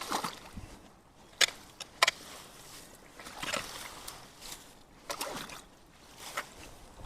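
Water splashing and sloshing in irregular strokes, with two sharp knocks a little over a second in and again about two seconds in.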